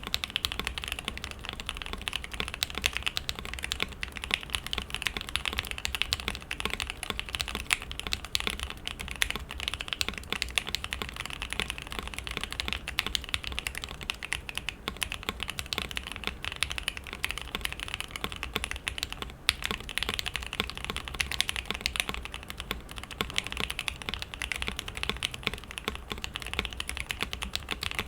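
Continuous steady typing on a custom Polaris mechanical keyboard fitted with lubed and filmed Banana Splits linear switches, a polycarbonate plate and foam beneath the PCB. Fast clicks and clacks of keys bottoming out, with a brief pause about 19 seconds in.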